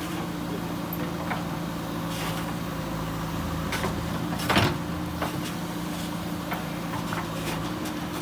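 JCB backhoe loader's diesel engine running at a steady hum, with scattered clanks and knocks from the working machine; the loudest is a single knock about four and a half seconds in.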